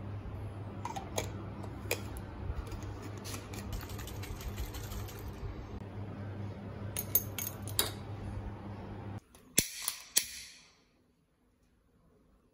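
Light clicks and taps of small bottles being handled over a steady low hum. Then, after a sudden cut, a lighter clicks sharply several times with a short hiss as it lights an anti-mosquito incense stick.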